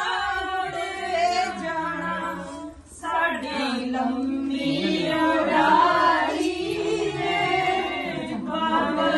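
Group of women singing a traditional sangeet wedding song together, unaccompanied, with a short break between lines about three seconds in.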